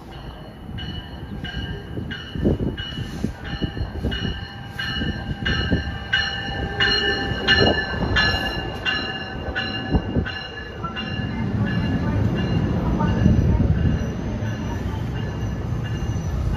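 NJ Transit multilevel commuter train pulling into a station, its bell ringing in even strokes about one and a half times a second as it approaches and runs alongside the platform. The bell stops about eleven seconds in, and the low rumble of the cars rolling past grows louder.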